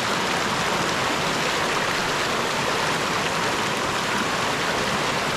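Rain-swollen river rushing loudly and steadily over rocks, the even roar of high, fast water after a heavy storm.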